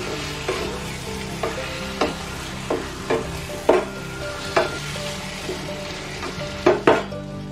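Chicken masala sizzling in a nonstick kadai while a wooden spatula stirs it, knocking against the pan at irregular strokes. Two louder knocks come close together near the end.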